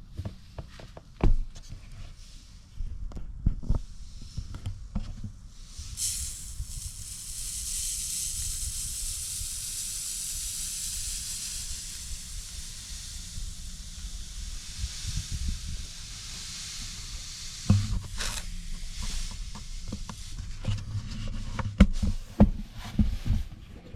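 Dry casting sand being poured in around a buried foam pattern: a steady hiss lasting about twelve seconds, with scattered knocks and thumps of handling before and after it.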